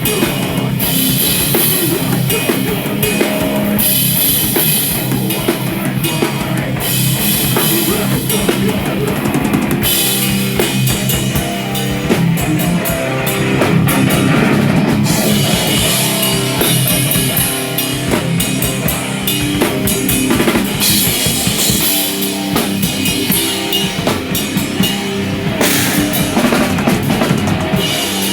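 Live rock band playing loud and without a break: a full drum kit with bass drum driving under guitar.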